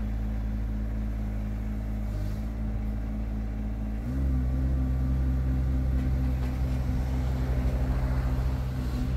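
Yanmar three-cylinder diesel of a CFG STE35SR mini excavator running steadily, then stepping up in speed and getting louder about four seconds in as the boom and blade are worked hydraulically.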